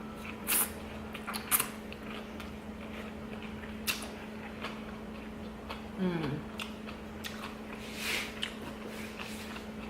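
A person chewing and biting food close to the microphone, with sharp wet crunches and mouth clicks about half a second and a second and a half in and again around eight seconds. A short falling voice sound comes about six seconds in, over a steady low electrical hum.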